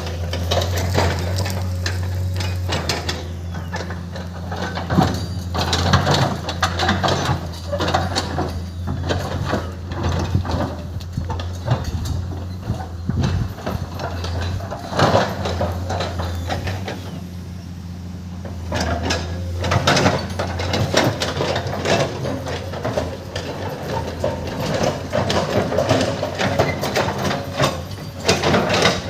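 Komatsu PC210 excavator at work: the diesel engine runs with a steady low drone while the machine makes repeated metallic clanks, knocks and scrapes.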